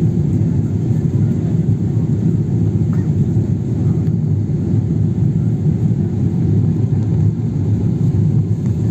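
Steady low rumble of an airliner's jet engines and airflow, heard from inside the passenger cabin.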